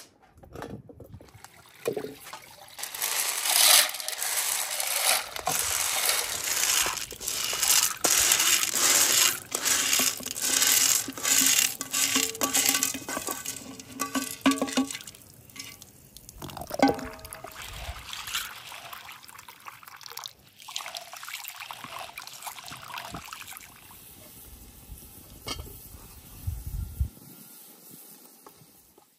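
Water running and splashing as pinto beans are washed by hand in a bowl of water, loudest through the first half, then giving way to quieter, scattered handling sounds.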